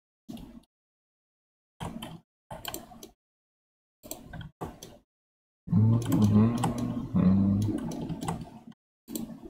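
Computer keyboard and mouse clicks in short bursts, each cut off abruptly so there is dead silence between them. From just past halfway, a louder low pitched hum lasts about three seconds.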